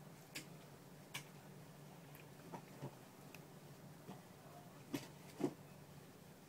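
Faint steady low hum of aquarium equipment with a handful of small sharp clicks scattered through it, the two loudest half a second apart late on.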